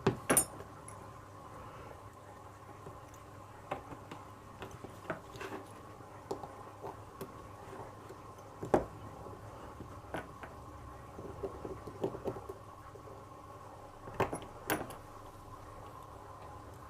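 Scattered small metallic clicks and taps of a picked pin-tumbler lock and its tools being handled, the loudest about nine seconds in and two close together near the end, over a faint steady hum.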